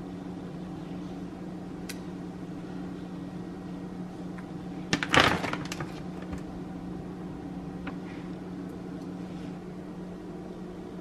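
Steady low hum of a kitchen appliance, with a few light spoon taps and, about five seconds in, a loud brief rustle of a plastic bag of frozen sliced strawberries being reached into.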